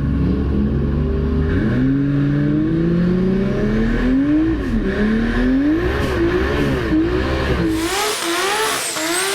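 A drag-race vehicle's engine revving hard, its pitch climbing and then swinging up and down over and over. About eight seconds in the deep rumble drops away, leaving a higher, hissing engine sound.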